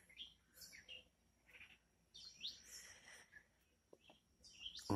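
Faint chirping of small birds: scattered short high calls, some sliding up or down in pitch.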